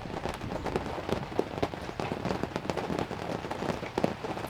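Heavy downpour, raindrops pattering densely and irregularly on a ground blind.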